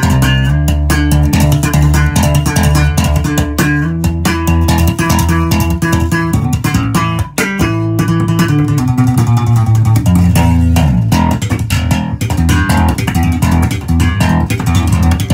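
A Schecter C-4 Silver Mountain four-string electric bass guitar played in a continuous run of plucked notes with sharp attacks, with a brief break about seven seconds in.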